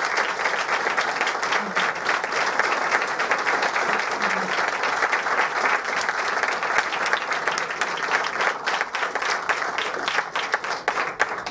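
Audience applauding: dense, steady clapping that thins out just before the end.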